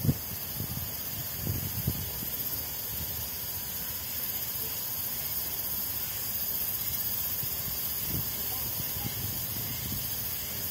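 Outdoor park ambience: a steady high hiss with irregular soft low thumps from a handheld camera being carried on foot.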